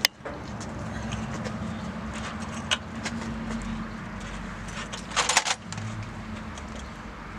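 Steady low hum with a few sharp metallic clicks, and a brief clatter of metal tools about five seconds in, as hand tools are picked up and handled.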